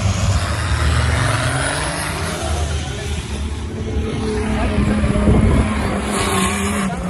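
Engines of off-road 4x4 race vehicles running hard in a drag race: a loud, continuous low drone whose pitch wavers, swelling slightly about five seconds in.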